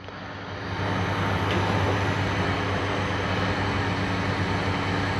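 Gas cooker burner running under a pot, a steady rushing noise with a low hum, building over the first second as the flame comes up; it is heating the grain mash for mash-out.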